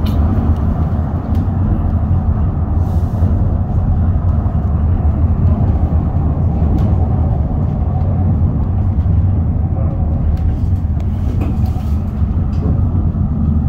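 Running noise of the Parsenn tram car as it climbs, heard from inside the cabin: a steady low rumble with a few faint clicks.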